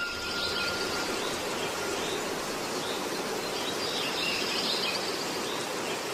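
Outdoor ambience: a steady background hiss with birds chirping here and there.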